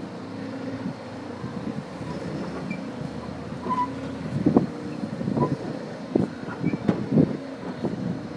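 Coin-operated kiddie ride car running: a steady motor hum, with a series of sharp knocks and rattles from about four seconds in.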